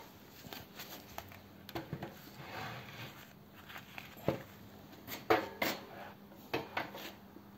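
Scattered light metallic clinks and knocks of hammers and a cast-iron flywheel being handled and set down, several sharper knocks in the second half.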